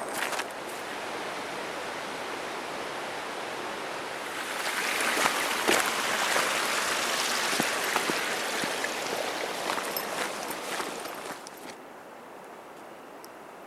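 Rushing creek water, a steady hiss that swells about four seconds in and then falls away suddenly near the end, with a few footsteps on top.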